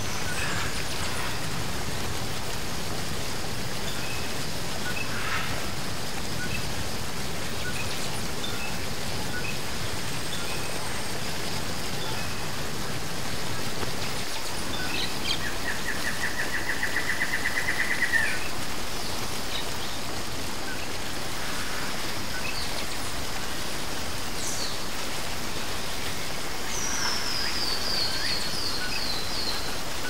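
Waterfall rushing steadily, with small birds calling over it: a rapid trill about halfway through and a quick falling run of notes near the end.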